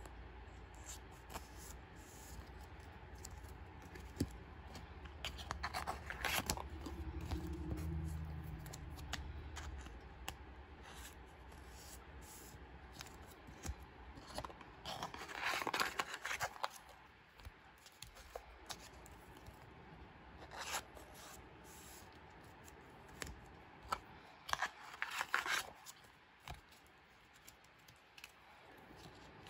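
Clear plastic photocard sleeves being handled: small ticks and clicks as sleeved cards are picked up and stacked, with three louder plastic rustles of a second or so, about a fifth, half and most of the way through.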